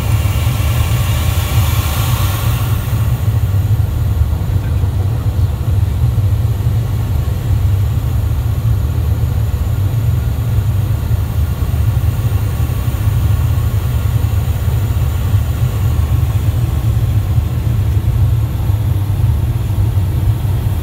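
Steady cabin noise on the flight deck of a Dassault Falcon 7X business jet in descent: a low, even rumble of airflow and engine hum, with a brighter hiss over the first few seconds.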